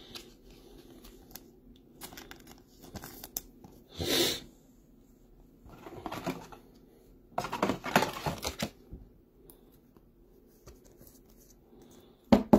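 Plastic rustling and crinkling in short bursts a few seconds apart, as trading cards are handled and slid into plastic sleeves and a top loader, with a sharper, louder rustle near the end.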